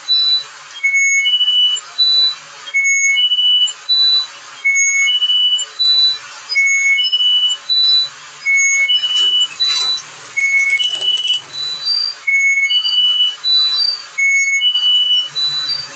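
An electronic three-note tone repeating about every two seconds: a low note, a high note, then a middle note, each held about half a second, like a beeping alarm or signal melody. A short patch of clatter comes about ten seconds in.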